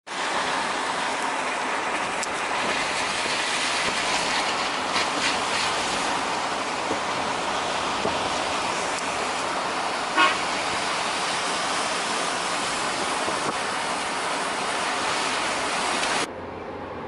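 Steady road and wind noise from inside a moving car, with one short car-horn toot about ten seconds in. The noise cuts off suddenly near the end.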